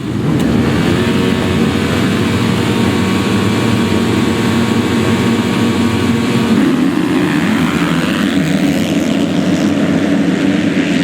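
A pack of MX2 motocross bikes at the race start, many engines revving hard together at high throttle.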